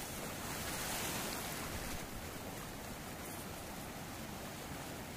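Ocean surf breaking and washing up the beach: a steady rush of waves, swelling a little about a second in.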